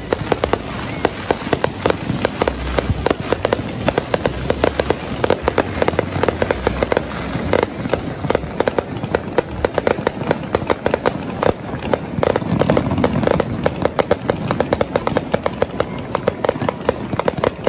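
Aerial fireworks display: a dense, continuous crackle of many small bursts, several a second, with deeper booms underneath now and then.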